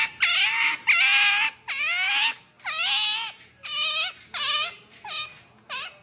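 Pet otter giving a quick run of high-pitched whining squeals, about eight in a row, each one bending down in pitch, growing weaker toward the end.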